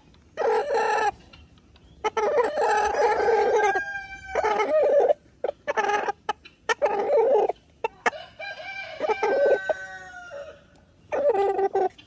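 Rooster crowing repeatedly, with shorter clucking calls between the long crows.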